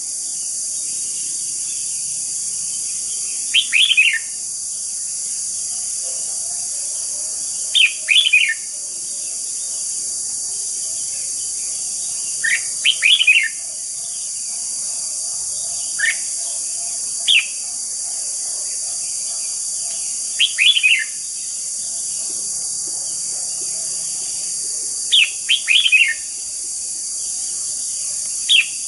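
Caged red-whiskered bulbul singing in short phrases of a few quick falling notes, repeated every few seconds, about eight times, over a steady high hiss.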